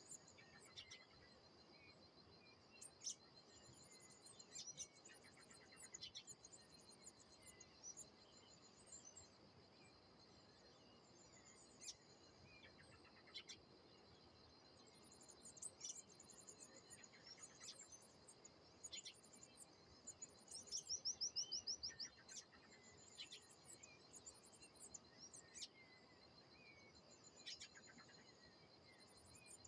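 Faint outdoor chorus of small birds chirping and calling over a steady high insect drone. A fast trill of repeated notes about two-thirds of the way through is the loudest sound.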